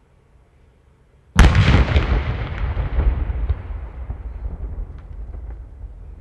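A large firecracker explodes beside a watermelon with one sudden, very loud bang about a second and a half in, blowing the melon apart. The bang trails off into a long, fading rumble with a few faint clicks.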